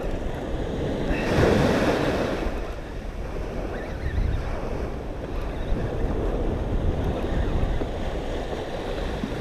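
Small surf waves washing up a sandy beach, with wind buffeting the microphone. A wash swells louder about a second and a half in, then eases back to a steady rush.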